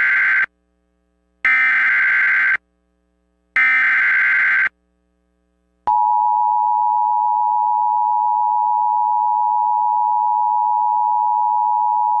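Emergency Alert System SAME header data bursts: the end of one and then two more, each about a second long and a second apart. About six seconds in, the steady two-tone EAS attention signal starts and holds.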